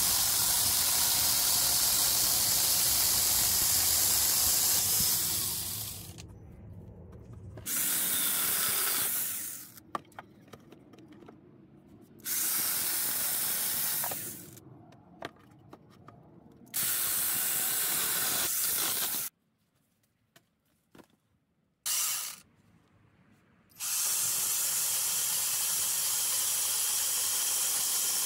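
Angle grinder fitted with a chainsaw bar and chain, sawing through logs. It runs in about five separate bursts of a few seconds each, with a short blip near the middle, and stops between them.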